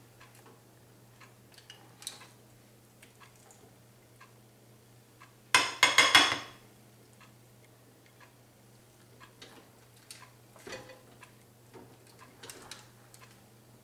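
A large metal spoon digging into shepherd's pie baked inside a sugar pumpkin: faint scattered clicks and scrapes, with one loud burst of scraping lasting about a second, around halfway through.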